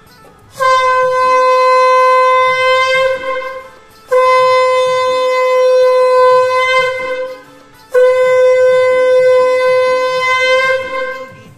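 Conch shell (shankha) blown three times, each a long steady note of about three seconds with short breaks between.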